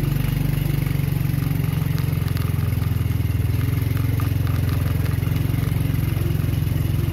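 Small motorcycle engine running at a low, steady speed while riding slowly over a rough, rocky gravel track, with scattered clicks and rattles from the stones and the bike.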